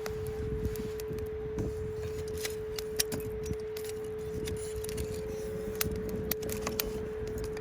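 Wood fire crackling with irregular sharp pops and snaps, over a steady pure tone at 432 Hz added underneath.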